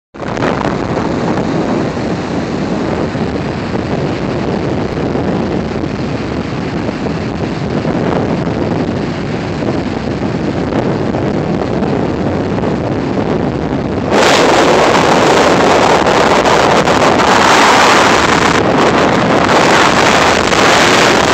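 Wind blowing across a phone's microphone, with ocean surf behind it: a steady rushing noise that turns louder and brighter about two-thirds of the way through.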